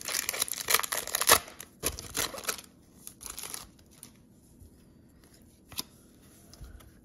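Upper Deck hockey card pack wrapper crinkling and tearing as it is ripped open, for about the first two and a half seconds. Then the cards are flipped through, with a few soft taps.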